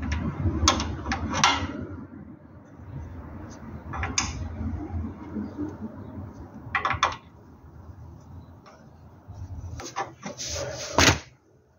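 Scattered metallic clicks and knocks from hand work refitting a car's clutch slave cylinder, with the loudest knock near the end. Underneath runs a low rumble of clothing and an arm brushing right against the microphone.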